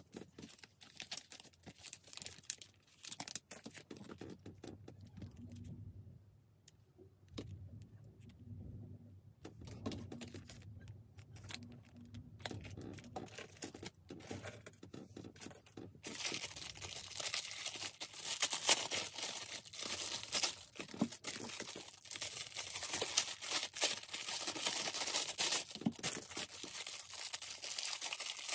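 Clear plastic packaging crinkling and rustling as it is handled and pulled open, with scattered clicks. A little past halfway the crinkling turns much louder and denser.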